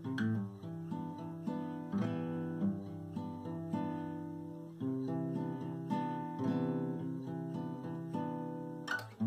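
Background music: an acoustic guitar playing plucked and strummed notes.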